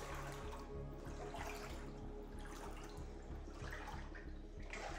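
Feet wading through ankle-deep floodwater on a flat's floor, with a sloshing swish about once a second as each step pushes through the water.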